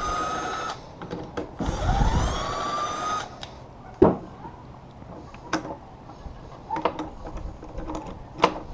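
Cordless impact driver whirring in two short bursts, its motor pitch rising as it spins up and then holding steady while it backs out a bolt. A knock follows as it is set down on the wooden bench, then a few light metallic clicks of transmission parts being handled.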